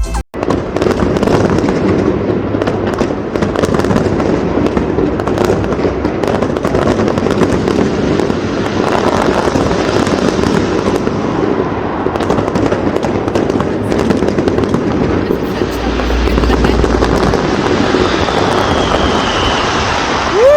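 Fireworks display: a dense, continuous barrage of bangs and crackles with no let-up.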